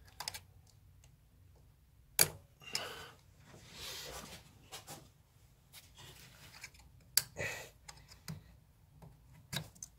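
Scattered plastic clicks and knocks with some rustling, from prying at a plastic wiring-loom connector with a small screwdriver under an Audi A6's dashboard. Two sharp clicks stand out, one about two seconds in and one about seven seconds in.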